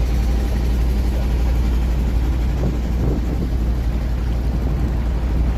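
A boat engine running steadily, a deep even drone as heard on board.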